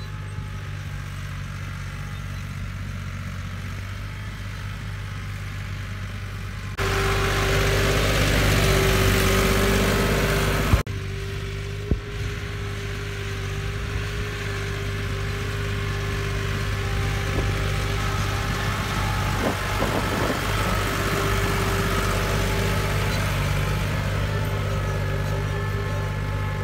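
Massey Ferguson 260 tractor's diesel engine, fitted with a Stanadyne injection pump, running steadily under load while pulling a tined cultivator. For about four seconds, starting about seven seconds in, the sound is louder and hissier, with two short clicks as it drops back.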